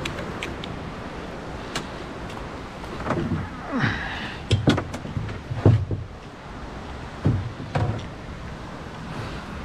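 Several irregular knocks and hollow thuds against a boat, bunched in the middle, over a steady rush of wind and water.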